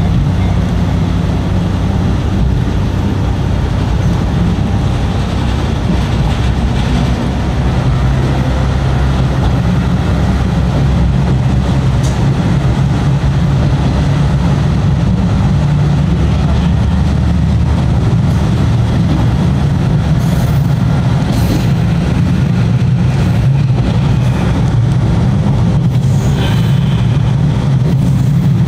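Inside a KiHa 38/KiHa 37 diesel railcar on the move: a steady low drone from the running diesel engine under a continuous rumble of wheels on rail. A few short sharp clicks and clatters come through in the last several seconds.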